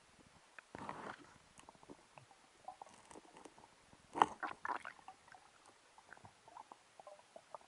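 Underwater clicks, knocks and scrapes of a spear shaft against rock as a speared fish is worked out of a crevice, with a short burst about a second in and the loudest cluster of knocks about four seconds in, over a faint crackle.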